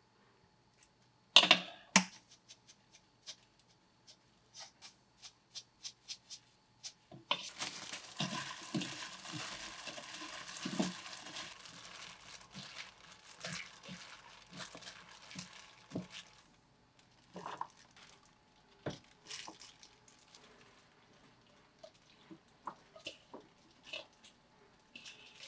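A couple of sharp knocks near the start. Then for several seconds a plastic-gloved hand tosses and kneads wet seasoned cucumber slices in a plastic bowl, with steady crinkling and soft squishy thuds. Scattered light knocks and taps follow.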